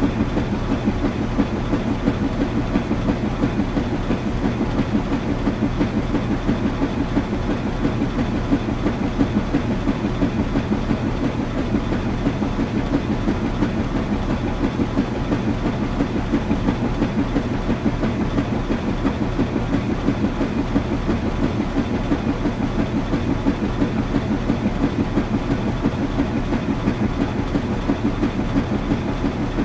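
Washing machine running steadily: a low hum under a fast, even, rhythmic rattle.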